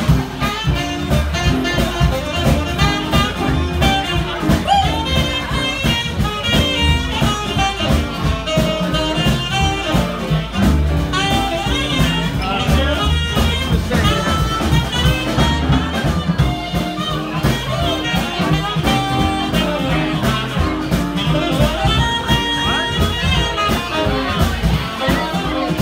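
Live swing band playing an instrumental passage: saxophone lead over upright bass and drums with a steady swing beat.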